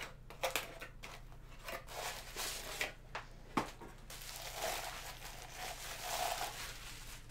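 A small cardboard box being opened and a bubble-wrapped mug pulled out. There are sharp clicks and tearing in the first half, then the plastic bubble wrap crinkles as it is handled.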